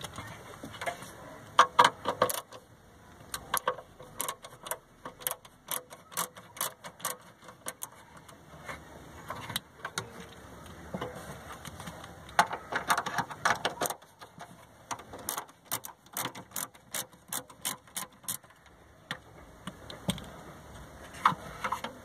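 Clicks and taps of plastic and small metal parts from a car tail-light assembly being taken apart: the Phillips screws holding the bulb-holder board are backed out and the plastic housing and board are handled. Runs of quick clicks, a few a second, with louder knocks now and then.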